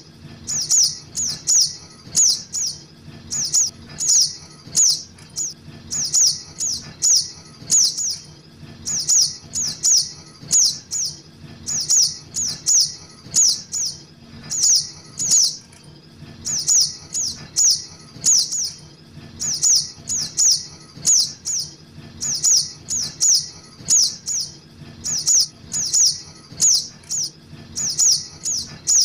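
Juvenile sogok ontong (ruby-cheeked sunbird) begging calls: high, quick falling notes in clusters of two to four, repeating about once a second.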